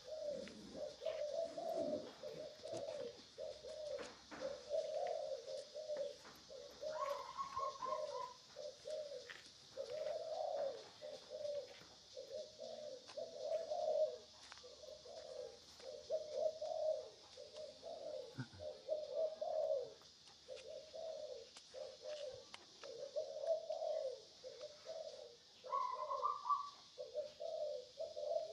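A bird calling over and over in short, low notes, one to two a second, with a few higher notes about a quarter of the way in and near the end, over a steady high hiss.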